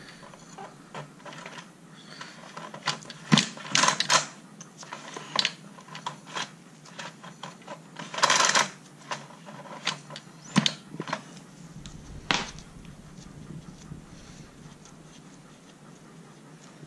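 Scattered clicks and knocks of hand tools and metal parts on the opened top of a small four-stroke trimmer engine, with one longer rush of noise about halfway through.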